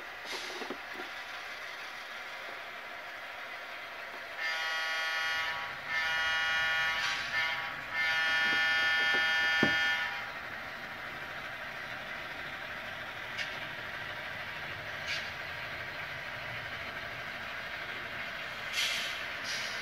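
Model diesel locomotive's sound-decoder horn blowing four blasts in the grade-crossing pattern, long, long, short, long, over a steady engine hum. A few faint clicks follow.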